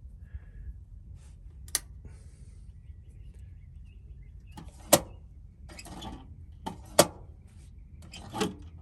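Small magnets clicking sharply onto the steel around a van's fuel door, twice loudly and a few times faintly, with handling noise in between.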